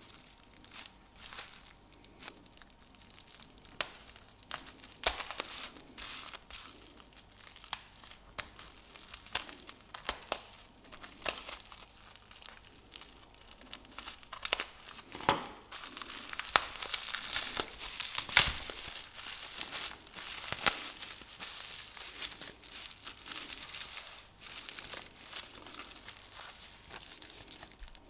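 Wrapping material crinkling and tearing, with scattered small sharp clicks and taps throughout, busiest a little past halfway.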